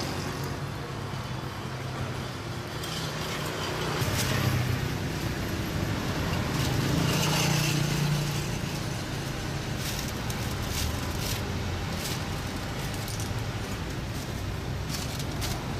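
Road traffic passing: steady engine and tyre noise that swells around four seconds in and again around seven to eight seconds. A few sharp clicks come in the second half.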